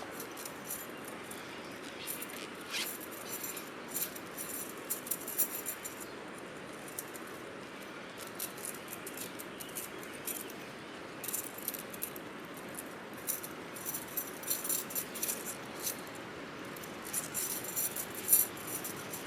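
Light metallic jingling and clinking in irregular clusters, denser toward the end, over a steady background hiss.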